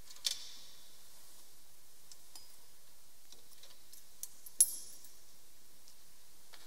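Two sharp clinks of altar vessels being handled, one about a quarter second in and a louder one with a brief ring about four and a half seconds in, with a few faint taps between.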